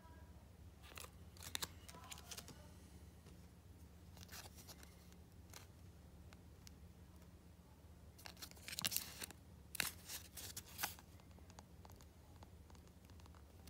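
Plastic coin flips crinkling and clicking as fingers handle and turn them, in scattered short bursts, the loudest cluster about nine to eleven seconds in. A faint low hum runs underneath.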